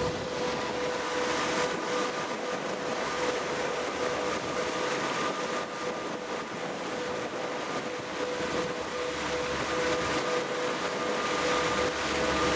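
Passenger ferry underway: a steady machinery drone with a held hum, over the rushing of the wake along the hull and wind noise.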